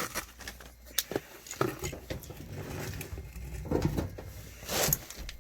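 Scattered clicks and taps with a couple of short scrapes, from hands and tools working on a gas dryer's panels and parts during reassembly, over a steady low hum.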